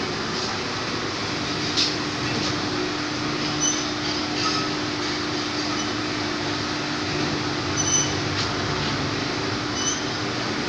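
Steady mechanical noise of an induction annealing machine running while it heats the ends of U-bent carbon steel pipes. A low steady hum sets in about a second and a half in, with a few faint clicks.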